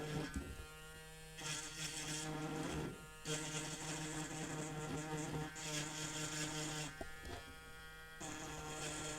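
Small handheld electric tool's motor buzzing in bursts, switched on and off several times while smoothing cured resin seams on a printed miniature.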